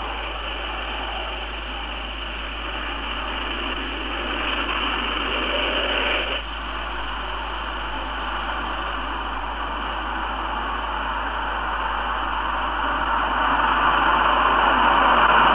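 Jet engine noise from the BAC 221, the converted Fairey Delta 2 delta research aircraft, on its landing approach with the undercarriage down: a steady rushing sound that drops abruptly about six seconds in and then grows louder toward the end.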